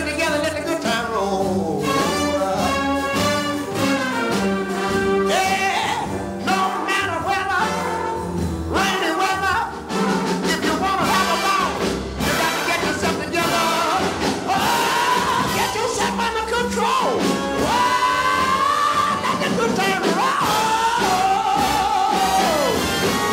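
Swing jazz music with horns playing the melody, with no singing.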